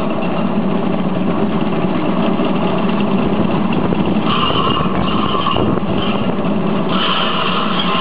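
Small air-cooled engine running steadily, driving a groundnut thresher as handfuls of groundnut plants are fed into its drum. A higher whine in the running sound drops out and comes back a few times.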